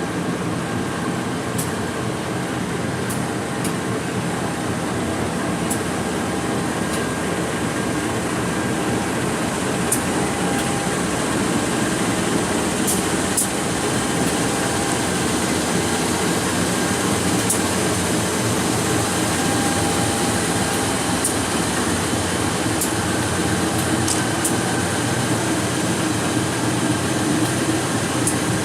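CC203 diesel-electric locomotive accelerating away under load, its diesel engine running hard and growing slowly louder, with scattered brief high ticks over the engine noise.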